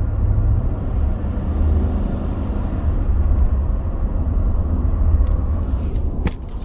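2017 Chevrolet Tahoe's V8 engine running with a steady low rumble, and a few sharp clicks near the end.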